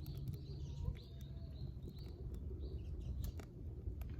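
Wood campfire crackling, with scattered sharp pops over a steady low rumble, and small birds chirping in the background.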